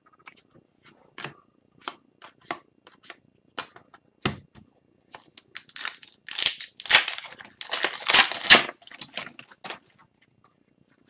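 Upper Deck hockey trading cards being handled and flicked through one by one: a string of light clicks and slides, with a louder stretch of cards rubbing and sliding over one another from about six to nine seconds in.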